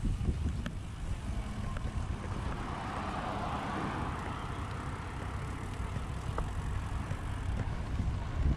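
Wind buffeting the microphone while riding, with a passing vehicle whose tyre noise swells and fades about three seconds in.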